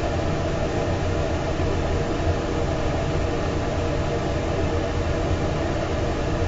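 Steady mechanical drone of food-trailer kitchen equipment: a low hum under an even rush of noise, with no breaks or changes.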